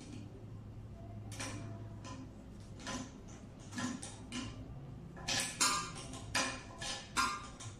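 Metal clicking of a small wrench tightening the nuts that hold a barber chair's steel base plate. The clicks are sparse at first, then come faster and louder from about five seconds in, roughly three a second.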